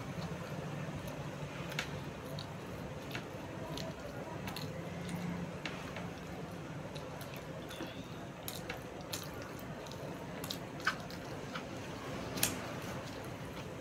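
Close-up chewing of soft puri and vegetable curry: wet, squishy mouth noises with scattered sharp lip smacks and clicks.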